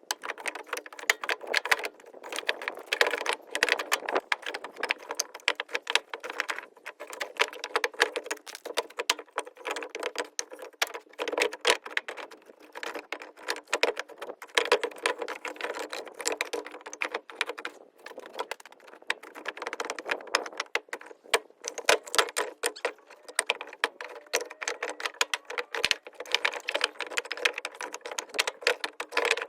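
Split firewood pieces clattering and knocking against each other as they are tossed and stacked onto a trailer, in a dense, rapid run of hard wooden knocks.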